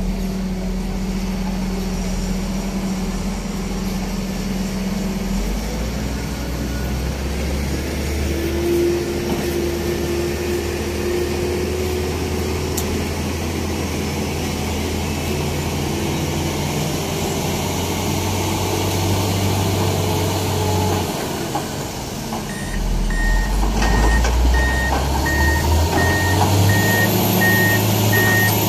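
Heavy crane's diesel engine running during a girder lift, its engine speed stepping up and down several times. About two-thirds of the way through, a beeping alarm starts, about two beeps a second.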